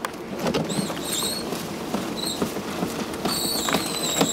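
A handful of short, high-pitched chirps at irregular intervals, the longest near the end, over faint clicks and knocks.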